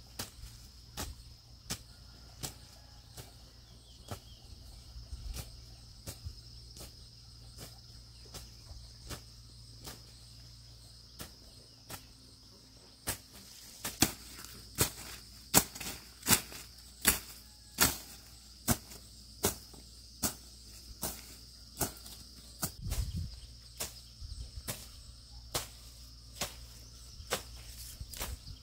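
Steady high-pitched insect chirring with a sharp knock repeating about every 0.7 s, the knocks growing much louder about halfway through.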